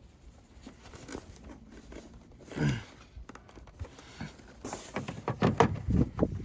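Handling noise from working on car wiring and a taillight: rustling, then a quick run of sharp clicks and knocks starting about two-thirds of the way in. A short falling sound comes near the middle.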